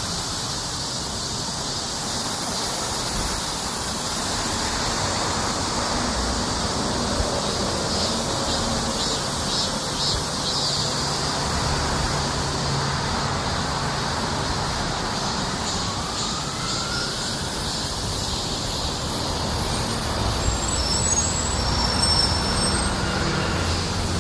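Cicadas buzzing in a steady chorus, a high hiss that pulses a little, with road traffic running underneath.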